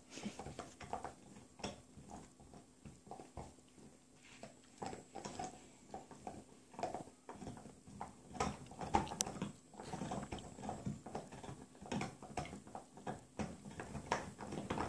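Two German Shepherds gnawing on chew bones, giving irregular crunching and scraping clicks of teeth on bone.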